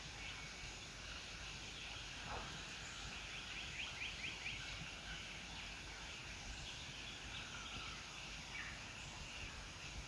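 Faint outdoor bush ambience with birds calling: a steady chirring chorus, a quick run of chirps about four seconds in, and low wind-like rumble underneath.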